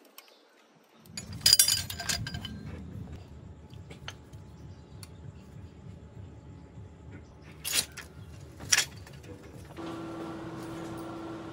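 Rusty scrap metal clanking and clinking as pieces in a scrap pile are shifted and a metal pipe is pulled out: a ringing cluster of clinks about a second and a half in, then two sharp clanks near the end. A steady hum takes over in the last second or so.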